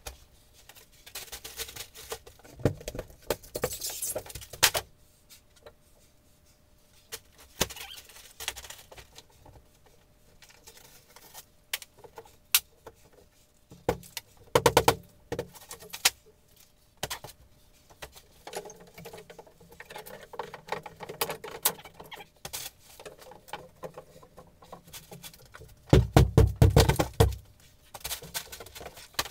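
Drywall being broken and torn off a wall by hand: scattered cracks, crunches and scrapes, with louder bursts of crunching about halfway through and near the end.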